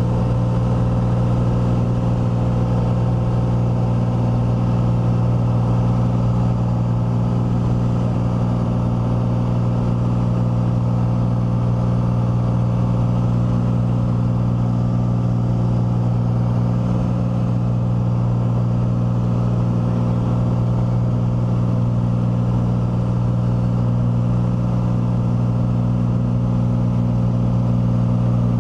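Single-engine propeller aircraft's piston engine and propeller droning steadily from inside the cabin, a constant low hum with rushing air, at unchanging power.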